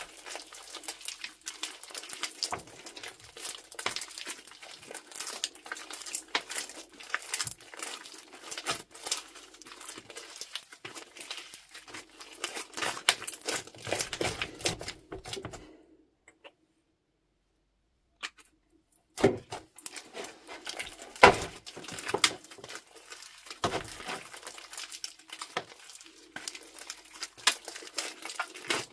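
Wet slime kneaded and squeezed by hand with bags worked into it: a dense, irregular crackling of sticky clicks and squishes. It drops out for about two seconds past the middle, then comes back with a few louder sharp pops.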